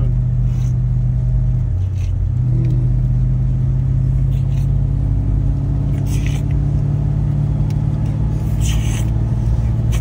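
1968 Chevrolet Chevelle driving on a snowy highway, heard from inside the cabin: a steady engine and road hum whose pitch dips briefly about two seconds in. Two short rustling noises come near six and nine seconds.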